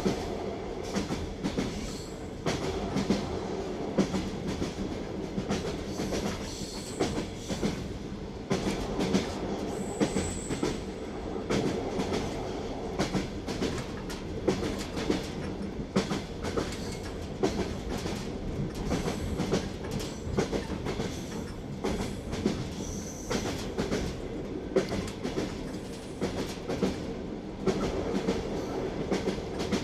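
Train wheels clicking over rail joints, an irregular clickety-clack over a steady rolling rumble. Two brief faint high whines come through, one about a third of the way in and one later on.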